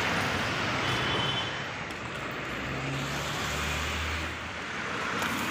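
Street traffic: a steady wash of road noise from passing vehicles, with an engine hum swelling and fading about three to four seconds in.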